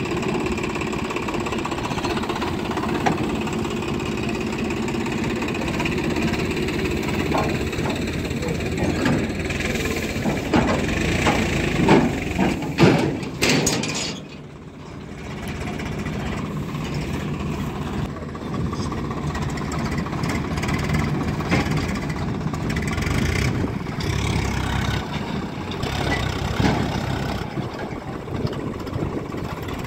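Tractor diesel engines running steadily, with a few loud irregular knocks and clatters in the first half. About halfway through the sound drops briefly, then one tractor engine runs on as it pulls a loaded trailer across the field.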